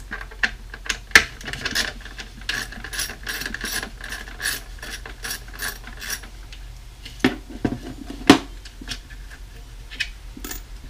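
A ratcheting hand tool clicking in quick, even ticks for several seconds, with scattered clicks of metal hardware and two louder knocks after the ratcheting stops.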